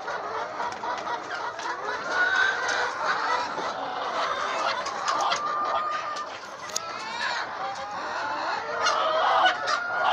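A crowded flock of laying hens clucking all at once, many overlapping calls, loudest near the end.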